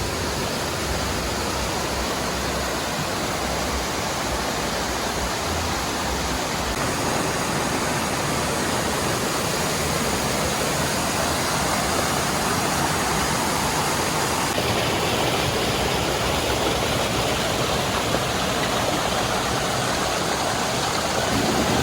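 Steady rushing of a forest river and its 12 m waterfall, a continuous wash of water noise that grows a little louder and hissier about two-thirds of the way through.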